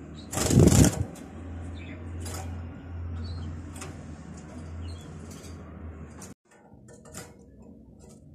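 Caged European goldfinch giving short, high chirping calls every second or so, with a loud rustle about half a second in.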